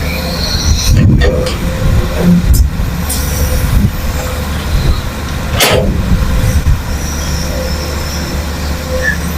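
Heavy diesel construction machinery, an excavator and a dump truck working earth, running steadily with a deep engine drone. Several sharp knocks and clanks cut through it, the loudest a little past halfway.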